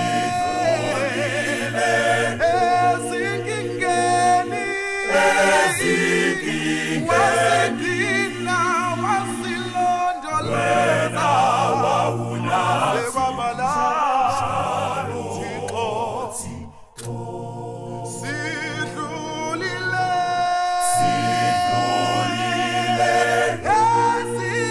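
Men's a cappella gospel group singing in harmony, with no instruments and a steady low bass line under the upper voices. There is a brief break in the singing about seventeen seconds in.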